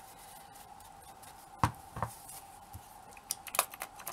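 Small handling clicks and taps: two sharp clicks about a second and a half in, then a quick run of little taps near the end. They come from a miniature spit-roast piece being set down on a cutting mat and from fingers with tissue dabbing in a small metal tin of Inca Gold metallic wax. A faint steady hum runs underneath.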